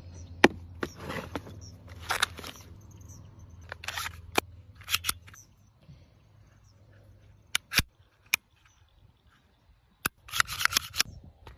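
Smith & Wesson M&P 22 Magnum pistol being handled and its action worked by hand: a series of sharp mechanical clicks and short sliding rasps, with a quieter gap in the middle and a cluster of rasps and clicks near the end.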